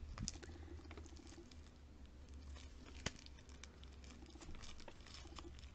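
Faint rustling and crinkling of nail-sticker sheets in clear plastic sleeves being handled, with scattered small ticks and one sharper click about three seconds in.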